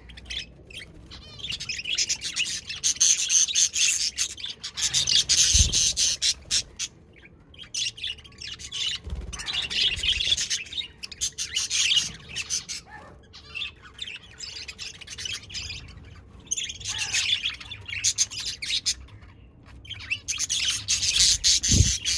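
Budgerigars chirping and chattering, in bouts of busy warbling that swell and fade every few seconds, with a few brief low thuds among them.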